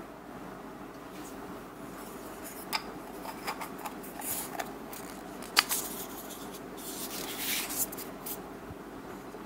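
Hollow plastic toy-egg halves being picked up and handled on a wooden desk: a few light clicks and knocks, the sharpest about halfway through, then some rustling near the end, over a steady background hiss.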